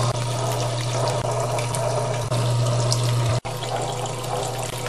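Belt-driven wet grinding wheel (a slow-speed whetstone grinder) running idle: a steady low electric-motor hum with water sloshing and trickling as the stone turns through its water bath. The sound breaks off for an instant about three and a half seconds in.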